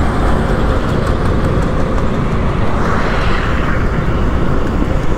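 Wind rumbling on the microphone of a moving motorcycle, mixed with road and traffic noise, with a hiss that swells and fades around the middle.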